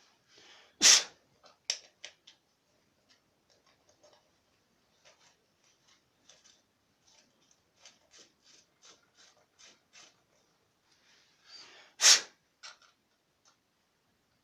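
A person sneezing twice, about eleven seconds apart, each sneeze with a short breathy lead-in. Faint scattered clicks and taps between.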